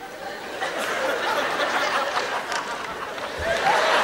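Audience laughing in a hall, the laughter growing louder near the end.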